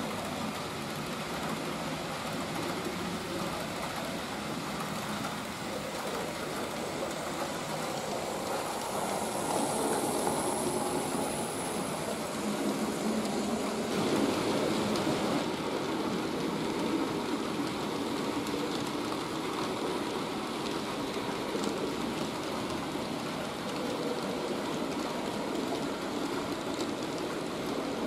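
Model railway trains running on the layout's track: a steady rolling rumble of metal wheels on rail with electric motor hum, from the Märklin BR96 steam locomotive model pulling its train of coaches around the curves. The rumble shifts a little about halfway through.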